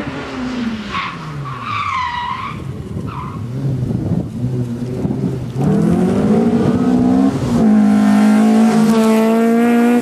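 Peugeot 306 rally car slowing for a chicane, its engine note falling as it brakes, with a wavering tyre squeal about one to three seconds in. About five and a half seconds in, the engine revs up and gets louder, then holds at high revs as the car accelerates through.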